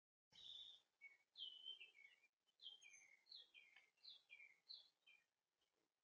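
Faint song of a songbird: a run of about six clear whistled notes, each sliding down in pitch, repeated at a steady pace and stopping about five seconds in.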